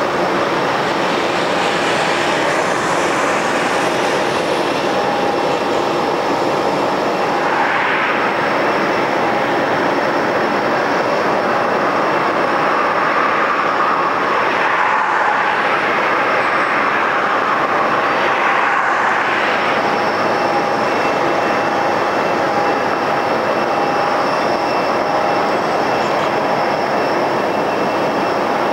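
Jet airliner running at idle on the apron during pushback: a steady roar with a thin, steady whine running through it.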